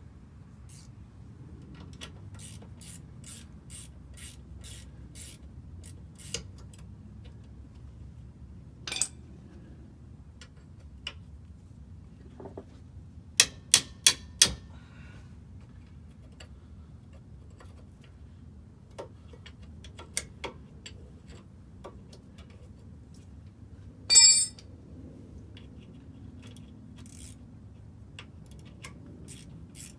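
Ratcheting wrench clicking in runs of quick, even ticks as bolts are turned, with four sharp metal clicks near the middle and one loud metallic clank that rings briefly about two-thirds of the way through.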